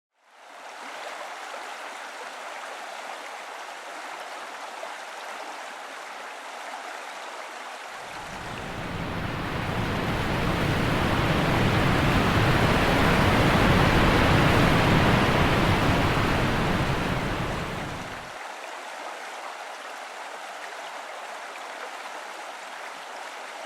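Rushing water of the Peguche waterfall, a steady roar. About a third of the way in it swells louder and deeper for around ten seconds, then falls back.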